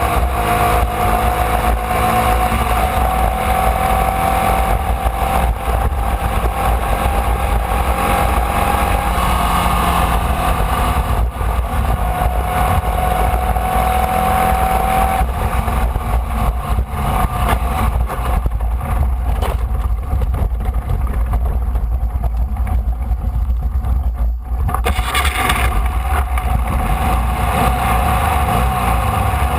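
Formula Vee race car's air-cooled Volkswagen flat-four engine heard onboard at racing speed, its note climbing slowly in pitch, breaking off about eleven seconds in and climbing again, then easing off for several seconds before picking back up near the end. A heavy, steady low rumble of wind buffeting the onboard microphone lies under it.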